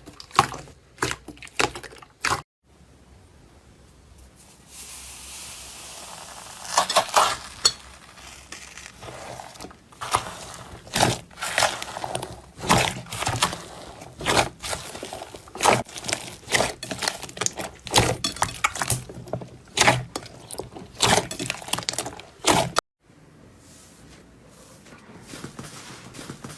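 Slime being pressed and squeezed by hand, giving dense runs of sharp crackles, pops and clicks over a soft squishing hiss. The sound changes abruptly about two seconds in and again near the end.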